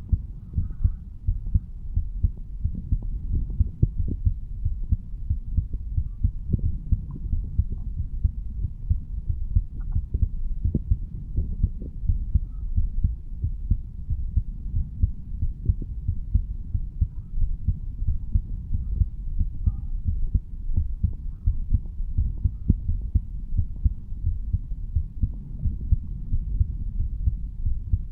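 A man's heartbeat heard through the chest over the mitral valve area: a steady run of low, even beats.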